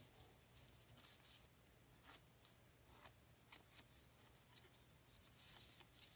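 Faint rustling and crinkling of a paper banknote being folded and creased by hand, with a few short soft clicks, over a low steady hum.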